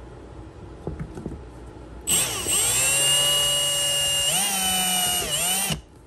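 Cordless drill with a twist bit boring through the plastic wall of a hard case. The motor spins up about two seconds in and runs steadily, then speeds up with a brief dip before stopping suddenly near the end.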